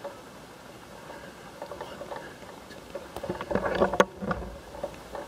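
Footsteps and rustling through dry grass, with clothing and gear brushing against a body-worn camera, building to a burst of handling noise with one sharp knock about four seconds in.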